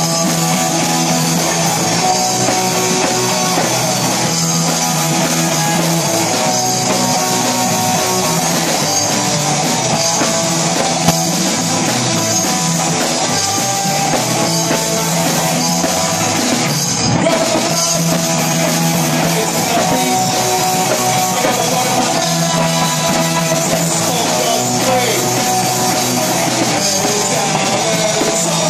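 Live rock band playing loud, with two electric guitars, a bass guitar and a drum kit.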